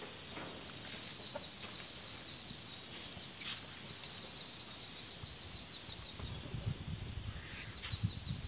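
A dog eating from a steel plate: soft chewing and lapping that come more often in the last couple of seconds. Underneath runs a steady, high insect trill, with occasional clucks of fowl.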